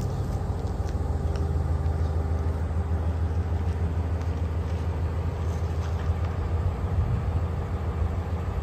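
Komatsu PC600LC-8 excavator's six-cylinder diesel engine idling steadily, a low even hum whose note changes slightly about two seconds in.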